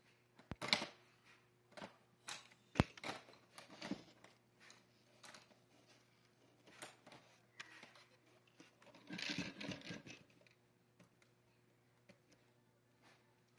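Screwdrivers and other small hand tools being picked through by hand in a clear plastic storage bin: irregular clinks, clicks and clatters of metal and plastic, busiest about nine seconds in and thinning out near the end.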